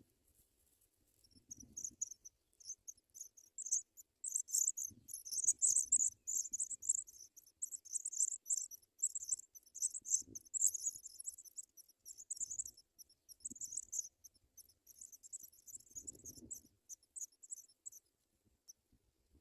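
African pipit nestlings begging: a rapid, high-pitched chirping that builds up, keeps on strongly for several seconds, then fades and stops near the end, with a few soft rustling thumps in the nest.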